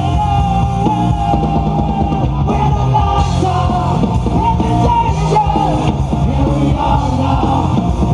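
Live rock band playing through a PA: a male singer belting into the microphone over electric guitars and drums.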